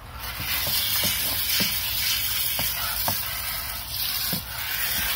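Water spraying from a pistol-grip garden hose nozzle into the basin of a plastic water table: a steady hiss of spray on the plastic. It starts just after the beginning and dips briefly about four and a half seconds in.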